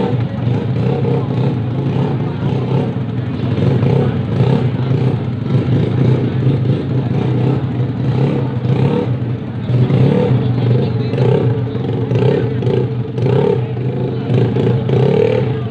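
Engines of two modified automatic scooters revving in repeated blips as the riders crawl along in a slow drag race.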